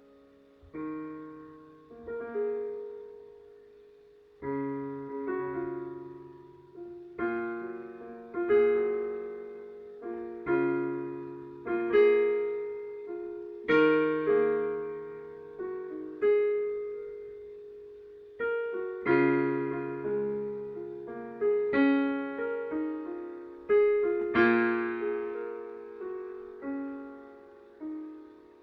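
Solo piano playing slow chords, each struck and left to ring and fade, one every second or two, with a longer pause about two-thirds of the way through.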